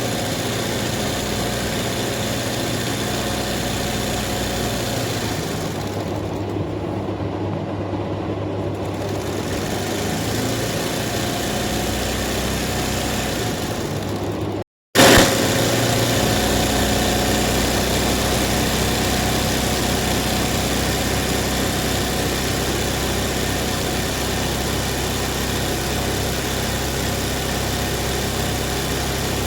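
Zari embroidery machine running steadily with a continuous mechanical hum and rattle. The sound cuts out for a moment about halfway through, then resumes a little louder.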